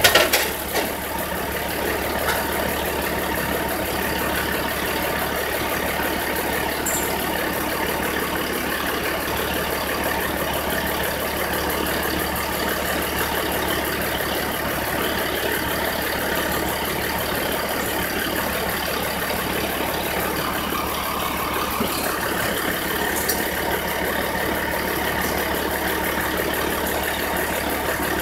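Truck engine idling steadily, with a sharp knock right at the start.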